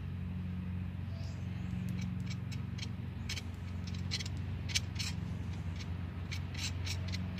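Light, irregular clicks and scrapes of a screwdriver tip working silicone sealant on a metal ski-pole tube, over a steady low hum.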